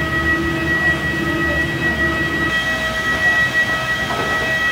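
A vehicle running with a steady whine of several held tones over a low rumble; the lowest tone drops out about halfway through.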